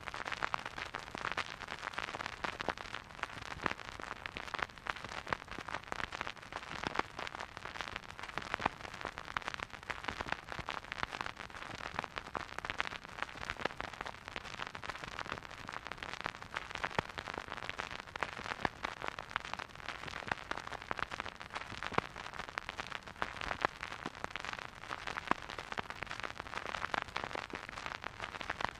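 Vinyl record surface noise from a spinning turntable: a steady soft hiss thick with fine crackles and pops, as a stylus riding an unplayed or run-out groove.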